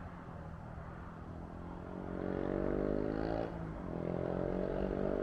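A motor vehicle's engine accelerating, its pitch climbing, dropping suddenly about three and a half seconds in as if at a gear change, then climbing again.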